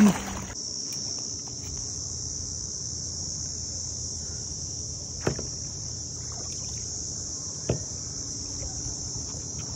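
A steady, high-pitched chorus of insects. A kayak paddle splashes at the very start, and two short knocks come about five seconds and nearly eight seconds in.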